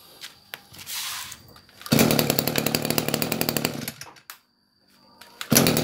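Kioritz 2326G brushcutter's 23cc two-stroke engine pull-started: a short rasp of the starter cord, then the engine catches and runs loud and fast for about two seconds. It cuts off abruptly, then runs again near the end.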